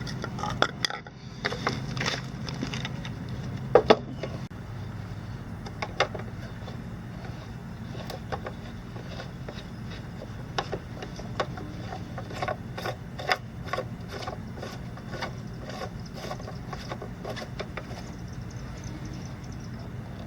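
Irregular clicks and knocks of objects being handled, the loudest a pair about four seconds in, over a steady low hum.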